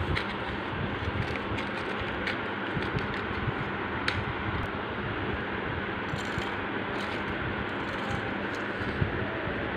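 Metal paper clips and a cardboard box being handled, giving scattered light clicks and clinks, with one slightly louder click near the end. Under it all runs a steady fan-like hum.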